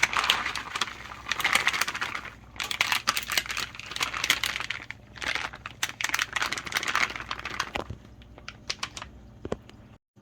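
Crinkling and rustling, as something is crumpled or handled, in three bursts of a couple of seconds each, then a few scattered clicks near the end.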